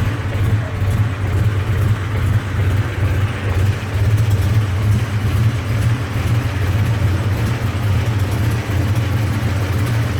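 Ford 4.6 L two-valve modular V8 with a built bottom end, running without its supercharger, idling steadily with a strong low exhaust hum.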